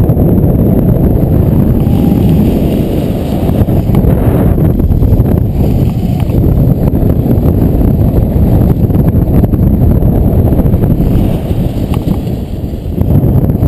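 Wind buffeting the action camera's microphone in the airflow of a paraglider in flight: a loud, steady low rumble that eases briefly near the end.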